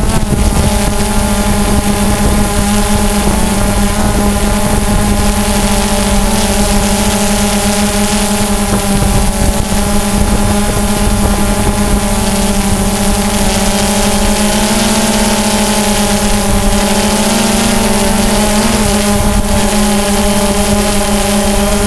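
DJI Phantom 2 quadcopter's motors and propellers buzzing steadily in flight, heard close up through the GoPro camera mounted on it, over a rush of wind noise. The pitch wavers slightly in the second half.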